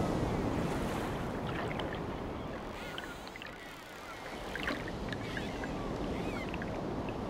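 Sea surf breaking against a seawall and washing across the promenade: a loud crash of waves at the start that slowly eases off, then swells again as another wave comes in about halfway through.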